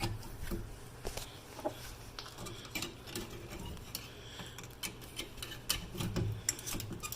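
Irregular light clicks and scrapes of metal on metal as a flathead screwdriver pries at a stuck rear brake caliper. A faint low hum runs under it.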